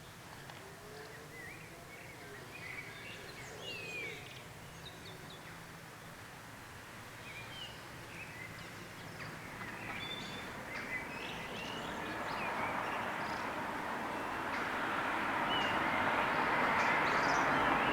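Birds chirping, while the rumble of an approaching LINT 41 diesel railcar grows steadily louder over the second half.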